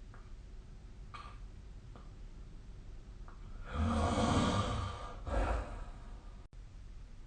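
A sleeping person's heavy breath: one long, loud sigh-like breath with a low rumble, about a second and a half, then a shorter breath right after.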